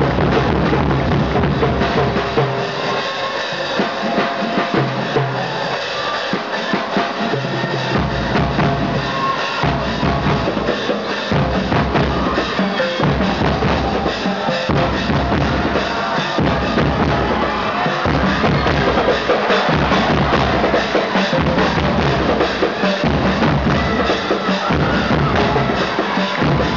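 Loud crowd noise in a gym with a steady drumbeat and percussion over it. The low beat drops out a few seconds in and comes back about 8 seconds in.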